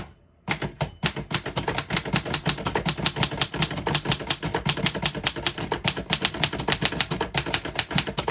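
Keys of a 1924 Remington Portable manual typewriter being typed quickly, the typebars striking the platen in a fast, irregular clatter of several strokes a second. The typing starts about half a second in.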